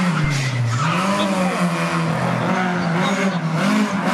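Rally car engine revving hard: its pitch dips briefly about half a second in, then climbs again and holds high as the car accelerates.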